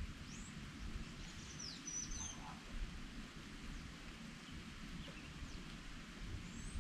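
Wild birds calling: short high chirps and sweeping notes, a cluster of them in the first half and one more near the end, over a steady low background rumble.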